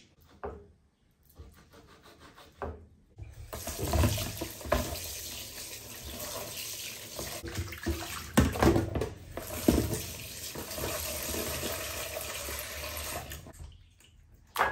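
Kitchen tap running into a stainless steel sink while raw beef slices are rinsed by hand in a plastic basin, with splashes and a few knocks. The water starts a few seconds in and stops shortly before the end.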